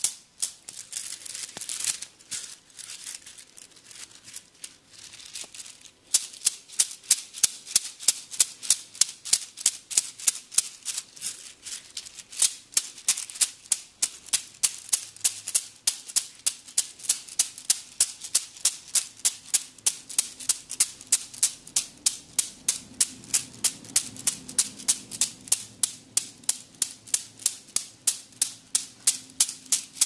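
Bamboo sticks tapping on the body in a massage: a quick, rhythmic train of sharp, dry clacks, about two to three a second. The first few seconds hold softer, irregular taps, and the strokes turn steady and loud about six seconds in.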